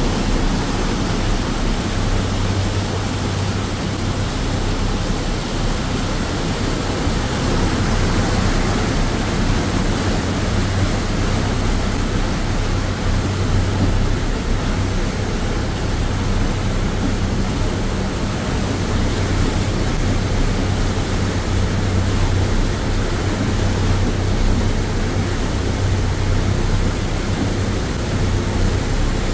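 Ferry engine running with a steady low drone under the rush of its churning wake water.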